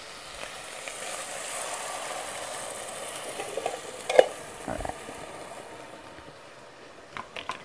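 Canned chicken broth poured into a hot enamelled cast-iron pot of sautéed vegetables, a steady sizzling hiss that fades over a few seconds. A sharp knock about four seconds in.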